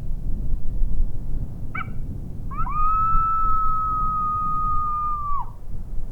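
A coyote howl sounded on a predator call to open a calling set: a short yip, then one long, even howl that rises at its start and drops off at the end. Wind rumbles on the microphone underneath.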